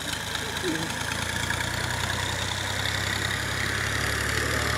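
An engine running steadily at idle: an even, low hum that holds unchanged, with a hiss above it.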